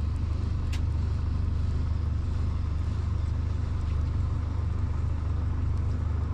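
Boat's outboard motor running steadily at low speed, a constant low hum.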